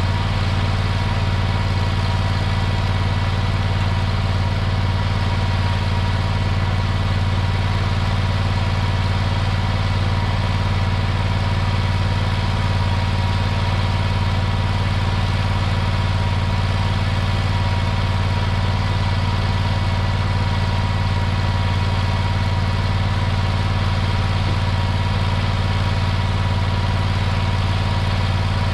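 Mini skid steer's gasoline engine running steadily, with an unchanging low drone throughout.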